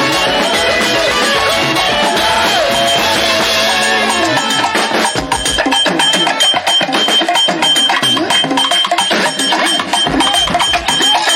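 Live gospel praise band music. Sustained instrumental lines give way about four seconds in to a busier passage of drum and percussion strikes.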